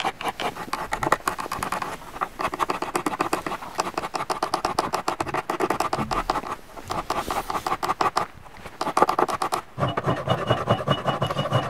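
Hand file scraping across the edges of a milled aluminium part in quick back-and-forth strokes, deburring it, with two short pauses.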